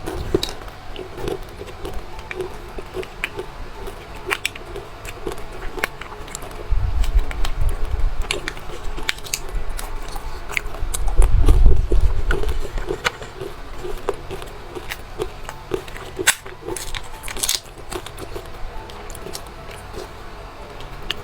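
Close-miked eating sounds of a person chewing candy: scattered sharp mouth clicks and smacks, with heavier low thumps of chewing about 7 and 11 seconds in.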